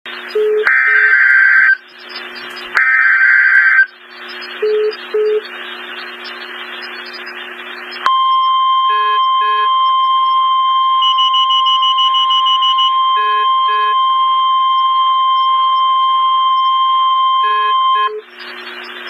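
A NOAA Weather Radio receiver plays two short raspy bursts of the digital EAS/SAME header, then about four seconds of radio static. It then sounds the steady 1050 Hz warning alert tone for about ten seconds, the signal that an EAS-activated warning, here a severe thunderstorm warning, is about to be read.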